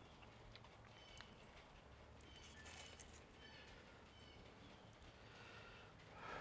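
Near silence: faint background with soft, short high chirps now and then.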